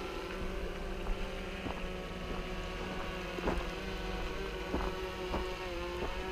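DJI Phantom 3 quadcopter's propellers and motors humming steadily in flight, with a few faint clicks.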